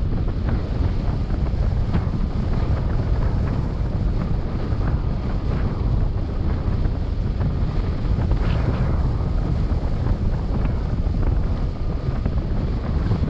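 Steady low rumble of wind buffeting the camera's microphone: airflow past a paraglider pilot in flight.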